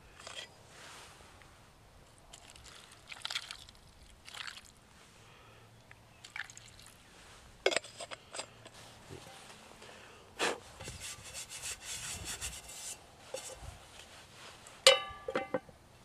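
Scattered light clicks and rustles, then near the end a metal lid set down on a metal camp pan, a sharp clank with a short ring.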